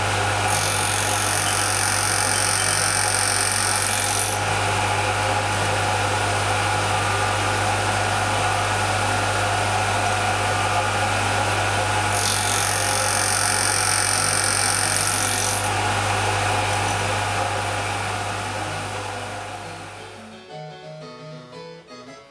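A high-speed fly cutter's spindle and an air blower run steadily with a constant hum. Twice, about half a second in and again around twelve seconds, a shrill high whine rises over them for about four seconds: the fly cutter passing through the brass wheel blank, cutting one triangular tooth each pass. The machine noise fades near the end and piano music comes in.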